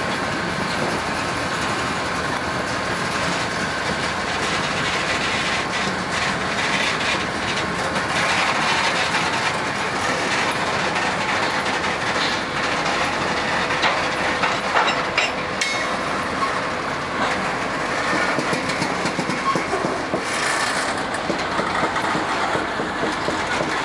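Freight train cars rolling past at close range: a steady rumble and rattle of steel wheels on the rails, with clicks and clanks from wheels over rail joints, heaviest about two-thirds of the way through. A faint steady whine sits underneath.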